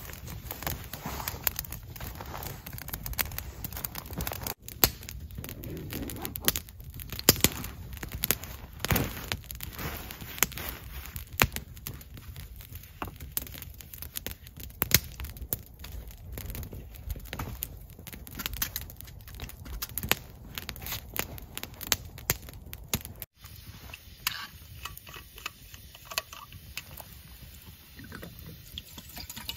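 Small campfire of dry twigs and sticks crackling, with irregular sharp pops several times a second. The pops thin out and the fire is quieter for the last few seconds.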